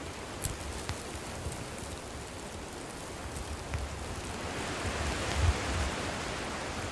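Wood campfire burning: a steady hiss with a few sharp crackles, the hiss swelling about four to five seconds in, with low rumbles.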